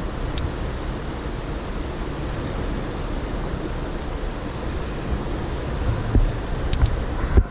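Steady wind rushing over the microphone, with a few low knocks near the end.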